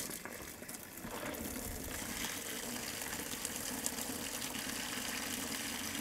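Water gushing out of the open anode port of a Suburban RV water heater tank into a bucket as the tank drains, a steady rush that grows a little stronger about a second in. The water carries out flakes of scale from a long-neglected tank.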